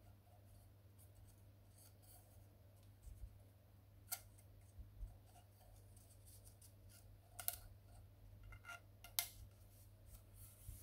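A few scattered sharp clicks and taps from laser printer parts being handled during repair, the loudest two in the second half, over faint room tone.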